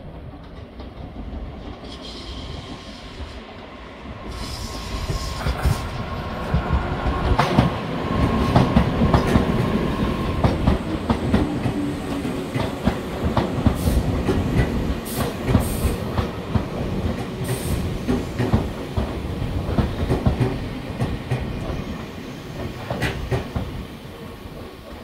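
Tobu 8000 series electric train (set 8111F) arriving at a station. It grows louder over a few seconds and passes close by with wheels clicking over the rail joints and a steady high tone for several seconds as it comes in, then fades near the end as it slows to a stop.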